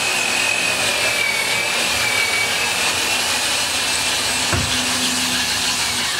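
Sunnen line hone running, its stones honing the cast-iron main bearing bores of a 6-bolt Mitsubishi 4G63 engine block under oil: a steady high whine over a hiss of abrasive on metal, beginning to wind down at the very end. The bores are being honed out because the main bearing clearances are still too tight.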